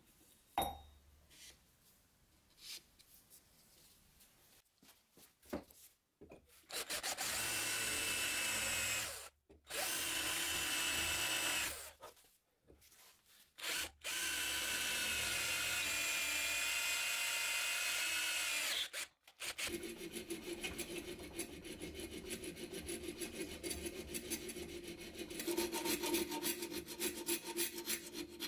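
Electric drill boring holes through a small metal plate, with a steady whine in three runs stopping and starting in between. It gives way after the third run to a narrow hand file rasping back and forth in the slot between the drilled holes, a few quick strokes a second, preceded near the start by a few light knocks as the plate is set in place.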